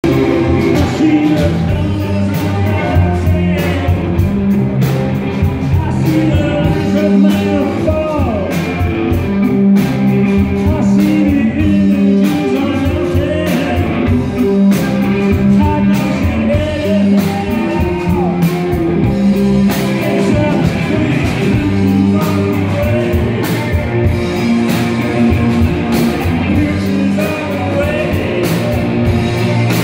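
Live rock band playing: a man singing over electric guitar, bass guitar and a drum kit with a steady beat.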